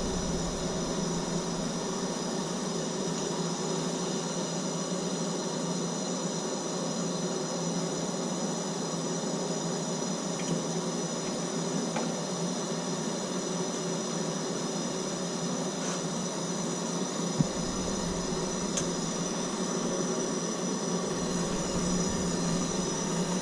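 Plumber's soldering torch burning with a steady hiss while a copper pipe joint is heated and sweated, with a brief knock about 17 seconds in.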